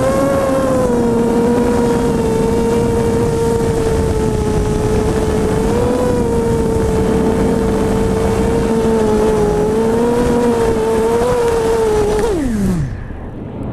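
Blackout Mini Spider Hex hexacopter's six brushless motors (Cobra 2204 1960kv, 5x3 props) whining steadily in flight, heard close from the onboard camera, with small rises and dips in pitch as the throttle moves. About twelve seconds in, the motors spool down in a quick falling whine as the craft lands and is disarmed.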